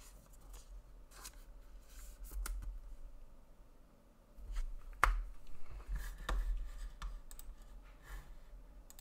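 Trading cards and card packaging being handled: scattered light clicks, taps and scrapes, with the sharpest tap about five seconds in and another a little after six seconds.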